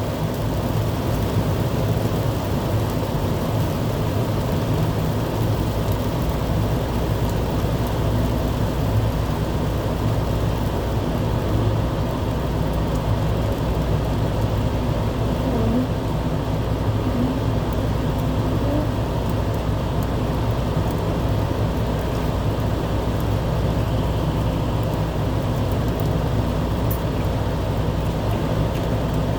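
Steady low rumble of a running vehicle, mixed with an even hiss of noise.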